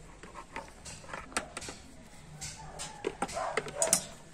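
Metal spoon scooping and pressing thick ground cacao-and-rice paste in a plastic bowl, giving scattered short clicks and scrapes, a few more of them close together near the end.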